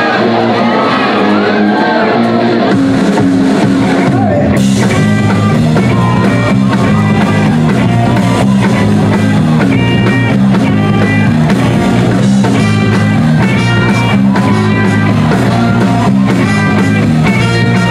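Rock band playing live with electric guitars and bass guitar; the low end fills in about three seconds in and the drum kit with cymbals comes in about four and a half seconds in, after which the full band plays on steadily.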